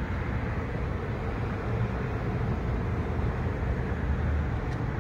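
Steady low outdoor rumble and hiss, with no distinct events.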